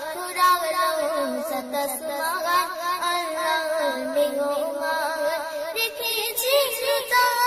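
A Bangla gojol, an Islamic devotional song, sung in long sliding, ornamented notes, with a second vocal line beneath the melody.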